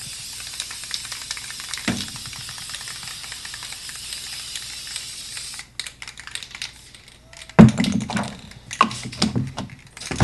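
Aerosol spray paint can spraying a steady hiss for about five and a half seconds, then cutting off suddenly. Scattered clicks and knocks follow, with one loud knock about two seconds later.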